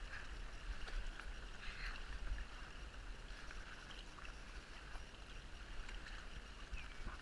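Sea kayak being paddled: water washing and dripping around the hull and paddle, with a few light splashes, over a steady low wind rumble on the camera microphone.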